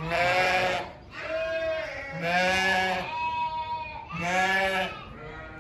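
Sheep bleating, four bleats in a row.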